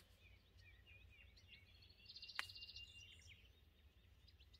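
Faint outdoor ambience of small birds chirping and twittering, with a short buzzing trill a little past halfway and a single sharp click about two and a half seconds in, over a low rumble.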